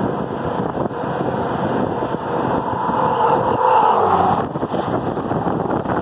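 Wind buffeting the microphone over a Farmall diesel tractor running on the road. About two and a half seconds in, a whine rises and grows louder, then cuts off suddenly near four and a half seconds.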